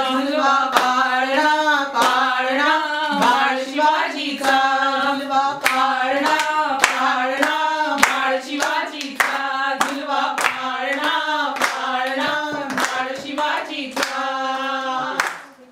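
Three women singing a Marathi cradle song (pāḷaṇā) together and clapping along in a steady beat of about two claps a second. The singing and clapping fade out near the end.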